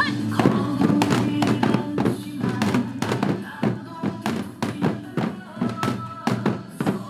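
Janggu hourglass drums struck with sticks by a group in a quick, driving rhythm, layered over loud recorded backing music.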